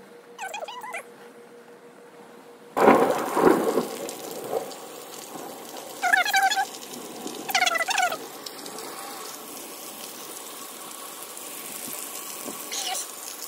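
A cat meowing, short pitched calls four times. About three seconds in comes a loud clatter, and after it a steady hiss of rain.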